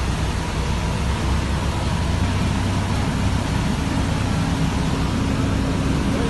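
A heavy engine running steadily, a low rumble with a steady hiss over it.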